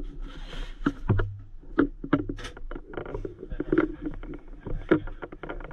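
Knocks, clicks and rustling as splints and gear are stowed in an ambulance's bench storage compartment and its hinged lid is handled. A steady low hum runs underneath.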